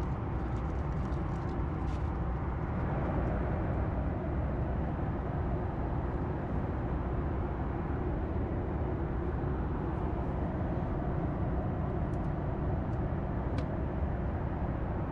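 Steady cabin noise of a Boeing 737 MAX 8 in cruise flight: an even low rumble of airflow and engines. A few light clicks sound over it.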